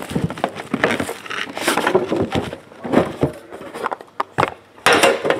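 Cardboard trading-card boxes handled on a table: a run of knocks, taps and scrapes as a box lid is lifted off, the loudest knock about five seconds in.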